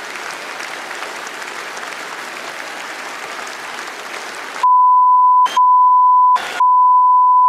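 A large audience applauding steadily. About four and a half seconds in, the applause cuts off abruptly and a loud steady test tone begins, the single high beep that goes with colour bars, broken twice by short crackly gaps.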